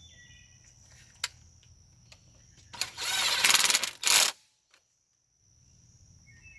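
A small power impact gun running in one burst of about a second and a half, a fast rattling hammer, running down bolts. A single sharp click comes shortly before it.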